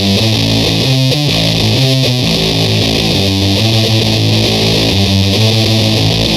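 Electric guitar played through the Wyse Audio Devices Cough Syrup, a two-transistor fuzz pedal: a riff of quick single notes, heavily fuzzed with a buzzy fizz on top. Its notch-filter tone control scoops out the midrange, giving a hollow sound.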